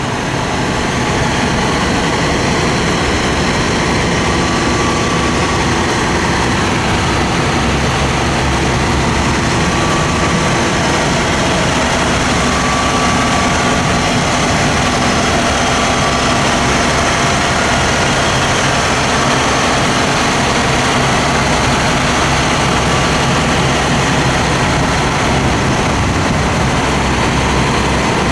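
Aerial ladder fire truck's diesel engine running steadily at low speed as the truck moves slowly.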